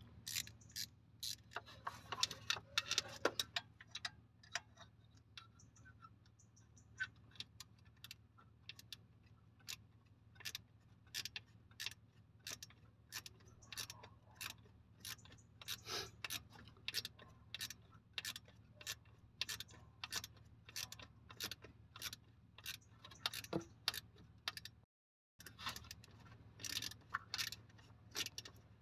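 A long series of sharp mechanical clicks, roughly two a second and slightly uneven, over a faint steady low hum.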